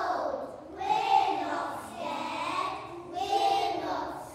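A class of young children singing together.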